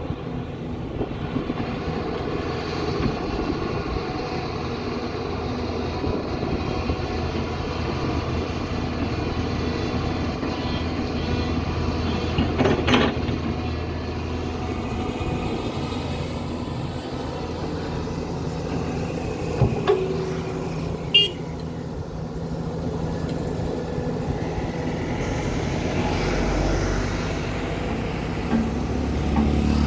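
Hyundai SMART 215L excavator's diesel engine running steadily while digging, with a few short sharp knocks partway through.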